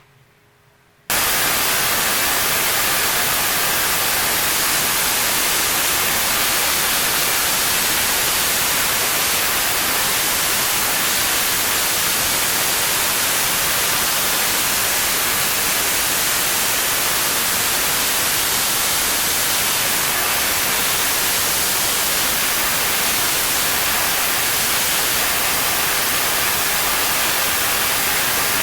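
Spark-gap Tesla coil firing, a loud, steady hiss of spark noise that starts suddenly about a second in.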